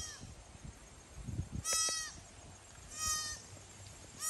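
White-tailed deer fawn bleating: three short, high-pitched calls about a second and a half apart, each bending down in pitch at its end.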